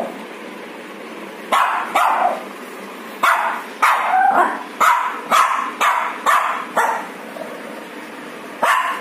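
Shih tzu puppy barking: about ten short, high barks, a pair about two seconds in, then a run of them roughly every half second, and a last one near the end.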